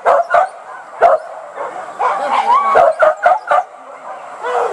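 Hunting dogs barking and yelping in short sharp calls, a few at first and then in quicker runs near the end, as they work the hunt for wild boar.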